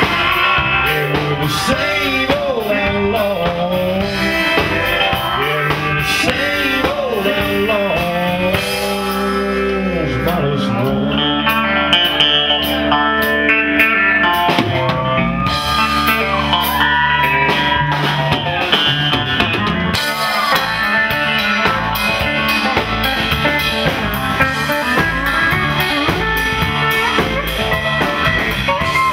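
Country band playing live in the outlaw-country style: electric guitar and drum kit, with pedal steel guitar. The music has sliding, bending notes.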